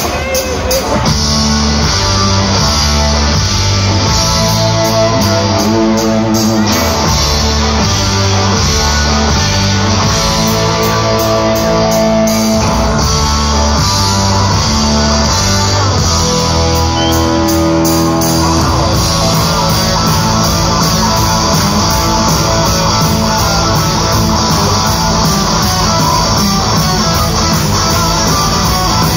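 Live rock band playing an instrumental boogie on electric guitars, bass and drums, without vocals. The playing grows fuller about two-thirds of the way through.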